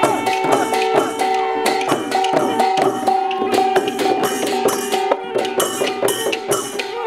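Thai klong yao long-drum procession music: the long drums beaten in a steady rhythm with small cymbals clashing on the beat, over long held melody notes.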